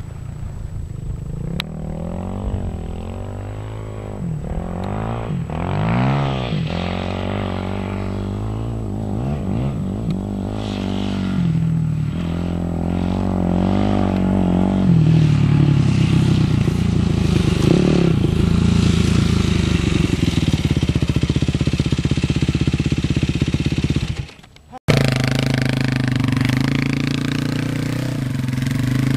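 Dirt bike engine riding on sand, its pitch rising and falling with each twist of the throttle, then running louder and steadier. The sound drops out briefly about 24 seconds in, then a motorcycle engine carries on steadily.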